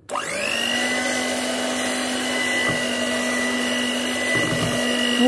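Electric hand mixer switched on, its motor quickly spinning up to a steady, high whine as the beaters mix cake batter.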